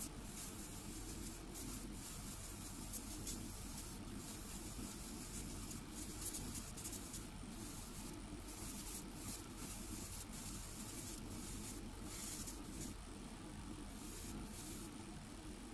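Gravity-feed airbrush spraying paint in short, repeated bursts of hiss, over a steady low hum.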